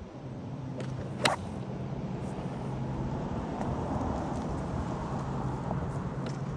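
A golf iron strikes a ball off an artificial-turf mat about a second in: one sharp crack. Under it a car engine runs steadily, growing louder toward the middle.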